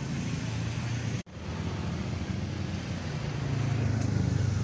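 Steady low rumble of road traffic, growing a little louder near the end, with the sound cutting out for an instant about a second in.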